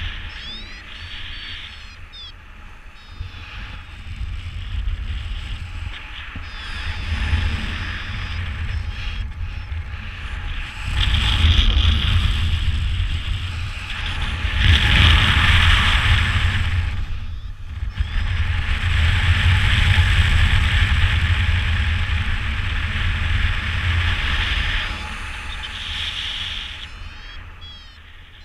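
Airflow buffeting the microphone of a camera on a paraglider during wingovers: a rushing wind noise that swells and eases several times as the glider swings from bank to bank and gains and loses speed, loudest about halfway through and fading near the end.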